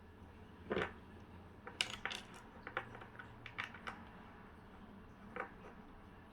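Lego bricks being handled and snapped together, an irregular string of light plastic clicks and taps, with a few louder clacks.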